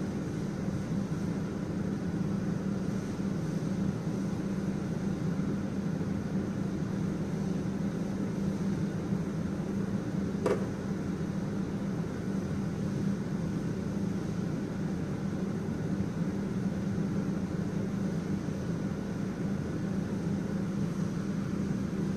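A fan motor running with a steady low hum and an even airy rush. A single sharp click about ten seconds in.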